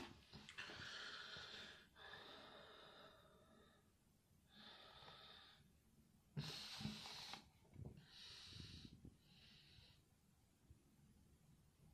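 Faint breathing close to the microphone: a series of about six breaths, each roughly a second long, with short pauses between them.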